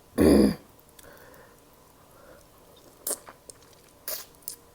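Person eating shrimp close to the microphone: a short loud burst right at the start, then soft chewing with a few sharp wet mouth clicks near the end.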